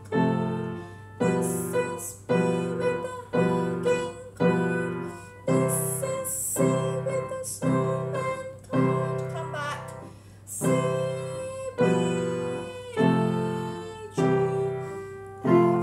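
Upright piano playing the C major scale one note at a time in the right hand, each note harmonized with a left-hand block chord (I, IV or V), about one chord a second.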